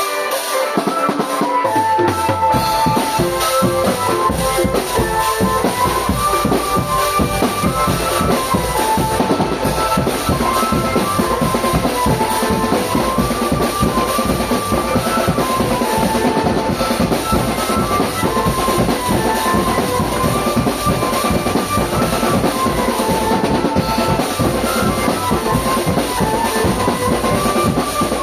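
A marching drum band playing: snare and bass drums beating steadily under a melody line, with the low drums coming in about two seconds in.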